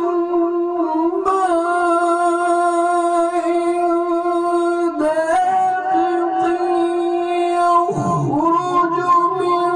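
A man reciting the Quran in melodic mujawwad style into a microphone, holding long sustained notes with brief breaks about five and eight seconds in.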